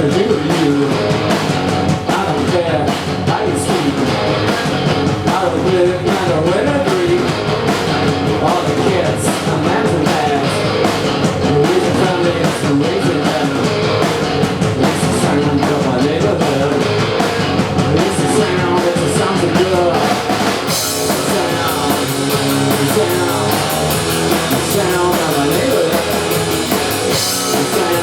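A rock band playing live, with electric guitar, drum kit and sung vocals. About three quarters of the way through, the band comes in fuller, with more cymbals and high end.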